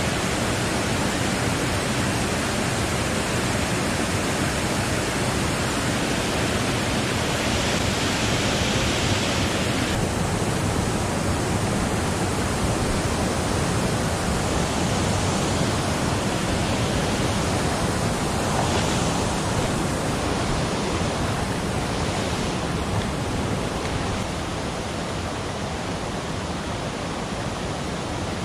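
Water pouring over a low concrete weir into a stream, with high flow: a loud, steady rush of falling and flowing water that eases slightly near the end.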